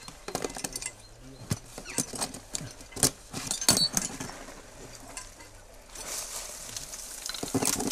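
A climber's metal gear clinking and knocking against rock in irregular sharp clicks, with a rustling hiss from about three-quarters of the way through.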